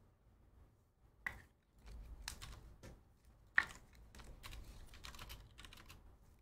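Faint typing on a computer keyboard: scattered key clicks, with a sharper clack about a second in and another a couple of seconds later.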